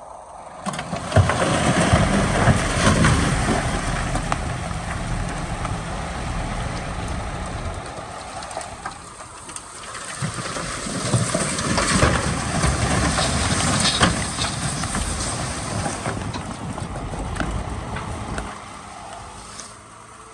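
Heavy diesel earthmoving machinery working under load, the engine swelling and easing twice, with scattered knocks and crackle through the noise.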